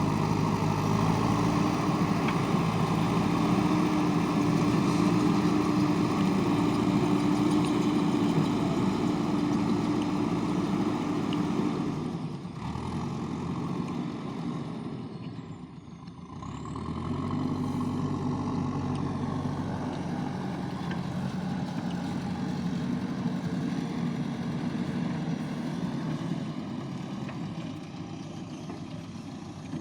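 Diesel engine of a JCB backhoe loader running hard under load. It eases off to a lower speed about halfway through, then picks up again and keeps working a little lower than at first.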